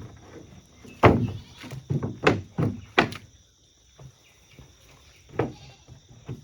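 Farm livestock calling: a run of short, sudden calls in the first three seconds, then one more a couple of seconds later.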